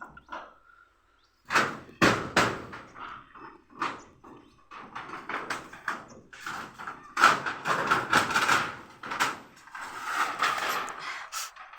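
Irregular knocks and bangs of hand carpentry work, wood and tools being struck and handled, with a denser cluster of knocks in the second half.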